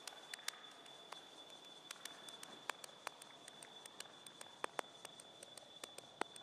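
Sparse electronic soundscape: a faint steady high-pitched tone over a low hiss, dotted with scattered, irregular clicks and crackles.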